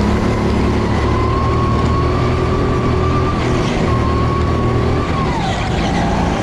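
Engine of a vehicle on a race-track lap, held at high revs; the note dips briefly around three and a half seconds in, then drops in pitch about five seconds in.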